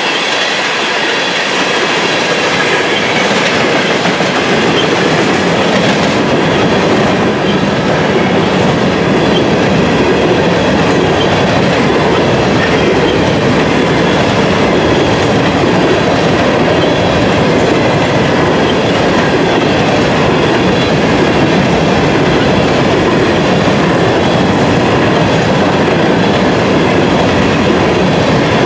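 Covered hopper cars of a grain train rolling past at close range, their steel wheels running on the rails in a steady, loud rumble and rattle.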